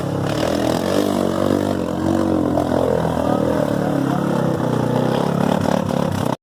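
ATV engines running and revving, their pitch rising and falling as the throttle is worked.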